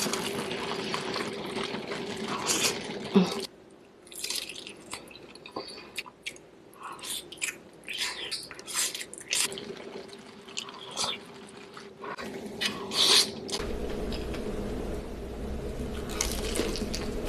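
Close-miked eating sounds: wet chewing, biting and lip smacks as saucy noodles and seafood are eaten, a run of short, irregular wet clicks.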